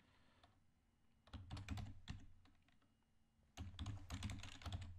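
Typing on a computer keyboard: a short run of quick keystrokes about a second in, then a longer, denser run starting a little past halfway.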